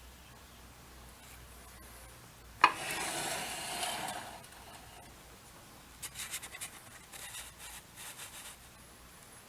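A sharp click followed by a second or so of scraping, then, about three seconds later, a run of short, rapid rubbing strokes.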